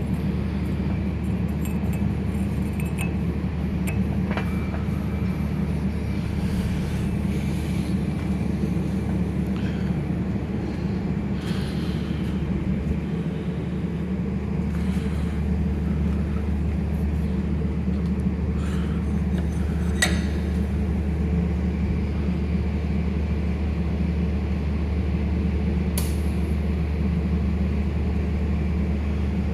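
Steady low machine hum, with a few light metallic clinks of metal parts being handled.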